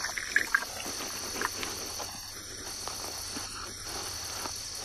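Steady high-pitched chorus of night insects, with faint rustling and a few short clicks in the first second and a half.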